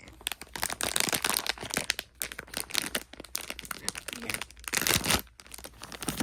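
Blind-box packaging being torn open, an irregular run of crinkling, crackling and tearing. It is loudest about a second in and again near the five-second mark.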